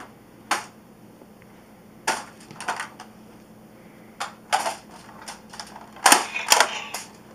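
Irregular sharp clacks and knocks, about nine in all, some in quick clusters, with the loudest pair near the end.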